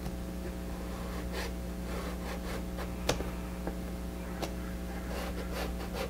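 Pastel stick scratching lightly on paper in a series of short strokes, with a few faint ticks, over a steady low hum.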